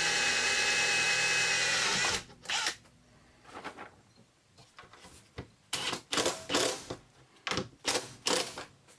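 Power drill running steadily for about two seconds with a motor whine, then, after a pause, driven in several short bursts of a fraction of a second each near the end.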